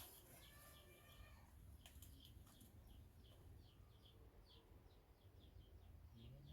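Faint bird chirping: short high chirps repeated about two or three times a second, over a low background rumble.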